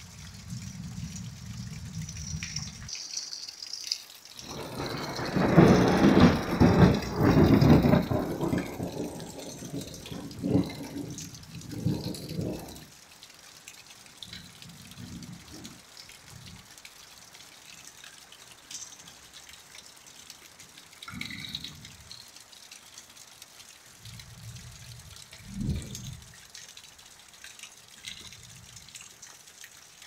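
Steady rain falling during a thunderstorm, with a rolling peal of thunder that builds about four seconds in, stays loud for several seconds and dies away. Softer low rumbles follow later.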